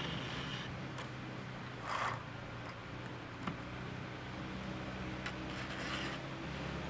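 Round file rasping across the cutters of a full-chisel chainsaw chain being hand-sharpened on a Stihl 661 C, a few short strokes with pauses between, the strongest about two seconds in. A faint low hum runs underneath.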